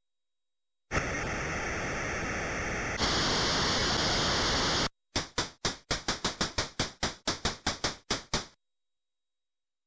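Electronic sound effects: a steady hiss of synthesized noise that steps up brighter about three seconds in and cuts off sharply near the five-second mark, followed by about fifteen quick clicking ticks at roughly four a second.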